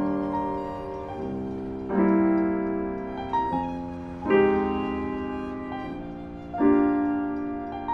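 Slow, quiet-paced piano music over the end credits: chords struck roughly every two seconds, each ringing out and fading before the next.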